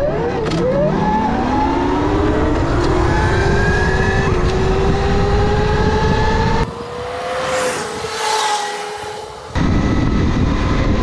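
Geared electric dirt bike accelerating hard from a standstill: the motor's whine climbs steadily in pitch over heavy wind rush on the bike-mounted camera. The wind rush drops away for a few seconds near the end, then comes back loud.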